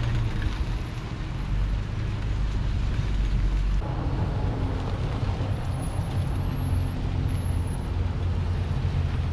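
Toyota Fortuner SUV driving slowly in two-wheel drive while towing a dead van across rough ground: a steady low engine rumble mixed with tyre and ground noise. A rougher, noisier layer joins about four seconds in.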